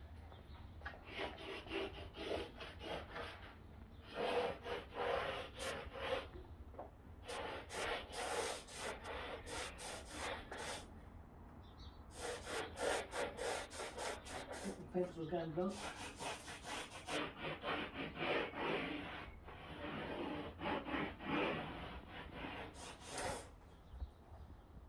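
Metal jar lid and pencil being slid around the edge of a template on a sheet of 3 mm plywood: a scraping rub of pencil and lid on wood, in runs of short strokes with brief pauses between them.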